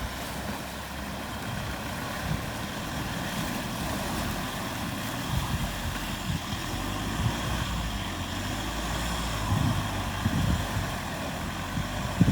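A heavy vehicle engine running steadily with a low rumble, with a few louder low surges and thumps toward the end.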